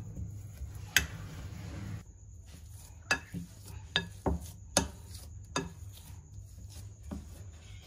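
Black plastic potato masher pressing boiled potatoes in a bowl, knocking against the bowl in about eight sharp taps at uneven intervals.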